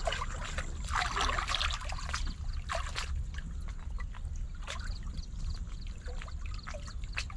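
Muddy pond water sloshing and splashing as two men wade chest-deep and grope for fish by hand, with a denser burst of splashing about a second in.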